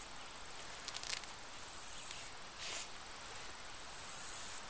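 Summer outdoor ambience: insects trilling at a high pitch in stretches of about a second, over a faint steady hiss. There are two brief clicks about a second in and near three seconds in.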